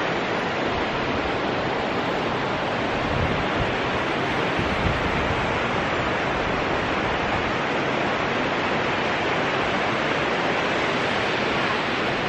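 Steady, even rushing of the Waiohine River's rapids in the gorge below the swing bridge.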